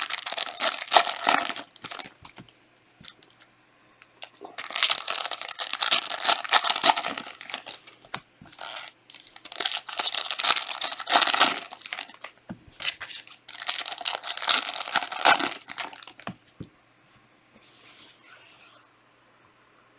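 Trading card pack wrappers being torn open and crumpled, in four bursts of crinkling a few seconds each, with a faint rustle near the end.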